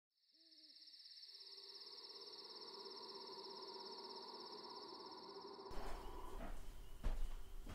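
Crickets chirring steadily over a low drone, fading up from silence. About six seconds in it gives way to a fuller, noisier ambience with a sharp knock.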